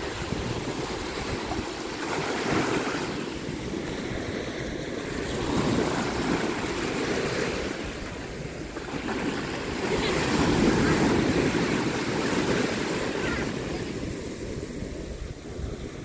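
Small sea waves washing up a beach and drawing back, a steady hiss of surf that swells and ebbs with each wash every few seconds, loudest about two-thirds of the way through.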